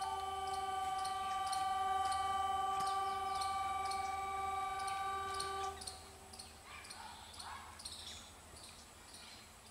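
Diesel locomotive air horn sounding one long steady blast of several tones together, cutting off about six seconds in.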